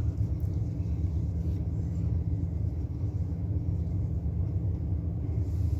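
Steady low rumble, an unchanging background machine drone with no distinct handling sounds.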